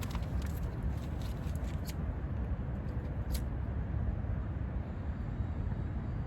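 Wind buffeting the microphone, a steady low rumble. A few light clicks and rustles come in the first two seconds, and one more about three seconds in.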